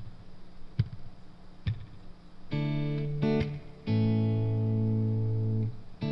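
Clean electric guitar playing sustained chords, a short stab then long ringing chords, after three sharp clicks about a second apart near the start.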